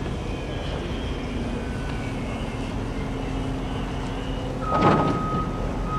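Low rumble of heavy diesel road-construction machinery, with the faint high whine of the RC plane's brushless electric motor and propeller drifting in pitch. About five seconds in comes a loud clatter, and a steady high reversing alarm starts beeping.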